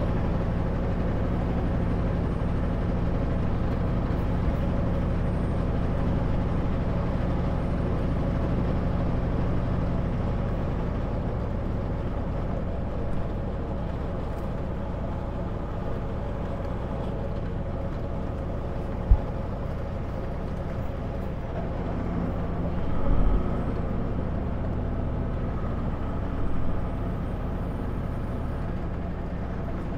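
Kenworth W900L semi truck running at a steady drone inside the cab, its diesel engine hum mixed with road noise. A sharp knock comes a little past halfway, then a couple of softer thumps.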